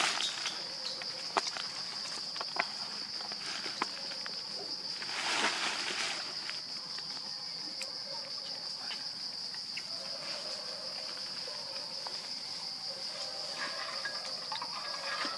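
Steady high-pitched insect drone, with scattered small clicks and a brief burst of noise about five seconds in.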